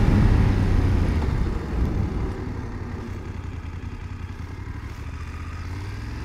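BMW F750GS's 853 cc parallel-twin engine with riding noise, loud at first and then dropping off about a second and a half in as the bike slows, settling into a quieter steady low run.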